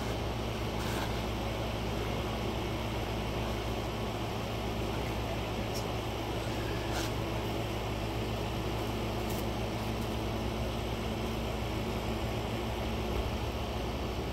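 Steady low mechanical hum, like a motor or fan running, with a few faint light clicks over it.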